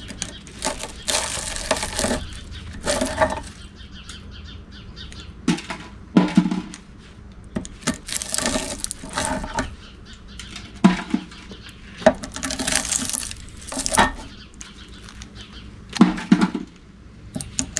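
Copper windings being pulled out of an electric motor stator with pliers. Irregular bursts of scraping and tearing wire, each up to about a second long, are broken by sharp metal clinks.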